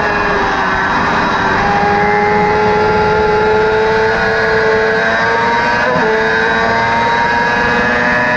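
Crosskart's motorcycle-derived engine running hard at high revs, its pitch climbing slowly under acceleration, with a short click and a small drop in pitch about six seconds in. It is heard from the open cockpit, with rushing wind and road noise under it.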